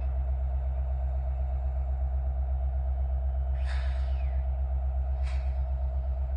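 Diesel locomotive engines of a freight train running with a steady low rumble and a faint regular throb as the train gets under way. Two short high-pitched sounds come through over it, about a second and a half apart.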